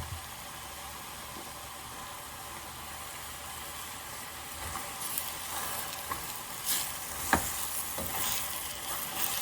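Chicken, mushrooms and freshly added bok choy sizzling in a pot with a steady hiss. From about five seconds in, a utensil stirs the food, scraping and knocking against the pot.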